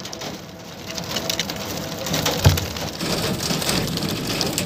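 A cage full of small birds fluttering and scrabbling against wire mesh: a dense patter of wingbeats and claw scratches, with one dull thump about two and a half seconds in.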